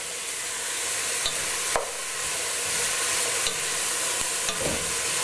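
Chopped leeks, celery and carrots sizzling steadily in hot oil in a soup pot as they are stirred, with a couple of light knocks.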